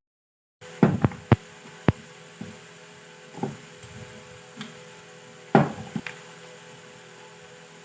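Sharp knocks and clicks from handling the parts, several in quick succession about a second in and another cluster near six seconds, over a steady hum. It opens with a brief dead silence.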